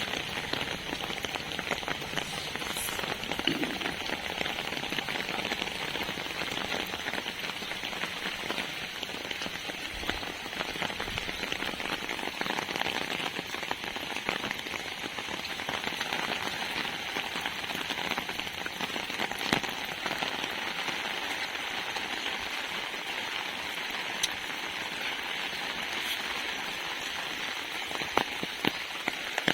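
Steady rain falling on an umbrella, a constant even patter with scattered louder drops, a few sharper hits near the end.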